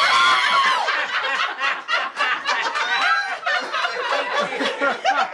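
A group of women laughing together, with a high-pitched excited squeal in the first second and overlapping laughs and short exclamations after it.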